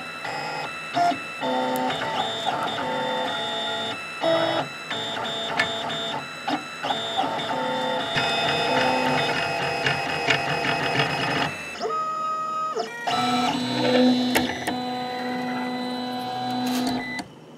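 Printrbot Simple Metal 3D printer's stepper motors whining as the print head moves, the tones shifting in pitch every fraction of a second. The sound stops abruptly just before the end.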